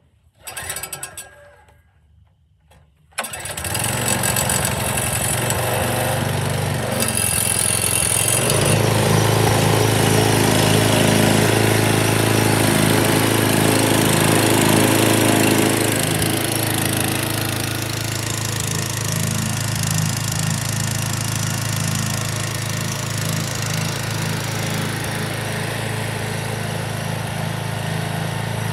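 Briggs & Stratton 725EXi 190cc engine on a string trimmer mower being pull-started. A short burst about half a second in does not catch. About three seconds in the engine starts and settles into a steady run.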